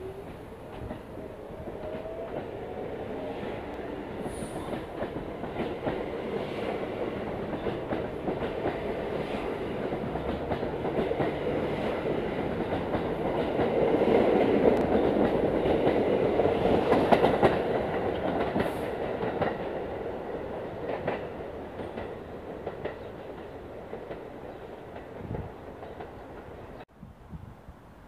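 New York City Subway train of R46 cars pulling out past the platform: a rising motor whine as it gathers speed, then steel wheels clicking over the rail joints. It grows louder as the cars go by and fades as the last one leaves, cutting off abruptly near the end.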